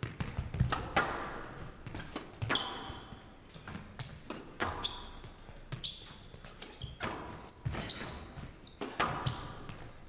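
Squash rally: the ball cracking off rackets and the court walls about once a second, with an echo after each hit, and shoes squeaking on the court floor between shots.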